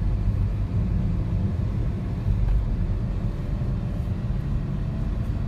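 Steady low rumble of a moving vehicle, heard from inside it.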